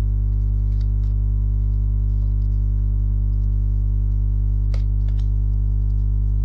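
Steady low drone hum, unchanging, with a couple of faint soft clicks about a second in and near the end.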